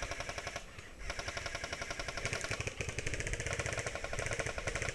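Airsoft electric gun firing on full auto: a short burst ending about half a second in, then a long continuous burst of rapid, evenly spaced shots from about a second in to the end.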